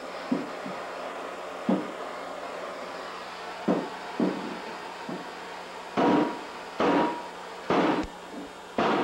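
A series of sharp knocks, hammer-like. They are sparse and lighter at first, then louder and about a second apart in the last three seconds, over a steady background hum.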